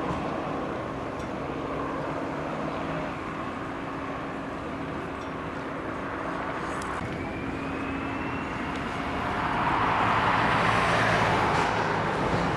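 Airbus A320-family airliner's jet engines with a steady low hum under a noisy rush. About seven seconds in, a rising whine begins, and the rush then swells to its loudest near the end as the engines spool up.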